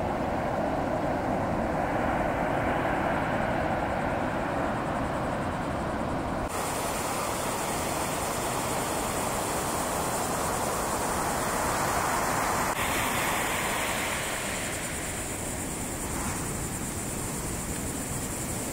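Ocean surf breaking on a beach: a continuous, even rush of noise. A faint steady hum lies under it for the first six seconds, and the sound turns abruptly brighter and hissier about six and a half seconds in.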